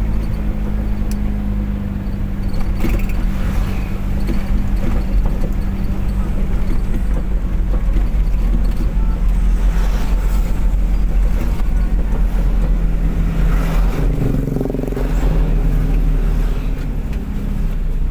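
Road vehicle driving at speed: a steady engine drone under road and wind noise, with the engine note changing briefly about fourteen seconds in.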